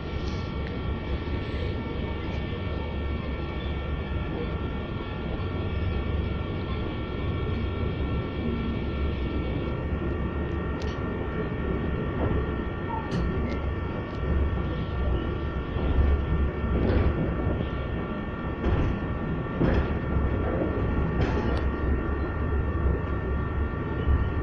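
A passenger train heard from inside the carriage while it runs: a steady low rumble with a hum of several held tones. From about halfway through, scattered clicks and knocks from the wheels on the track join in.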